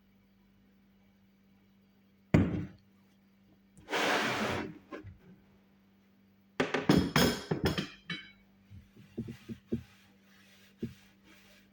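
Kitchen handling sounds: a sharp knock about two seconds in, a short rushing burst a little later, then a rapid run of clatters and a few light knocks.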